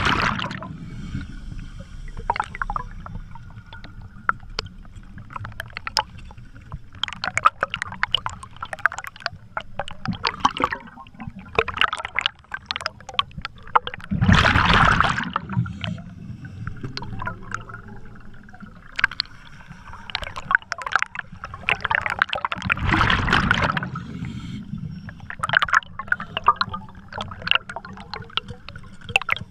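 Scuba diver breathing through a regulator underwater: two long rumbling gushes of exhaled bubbles, about halfway and about two thirds of the way in, with lighter crackling and clicking of bubbles between them.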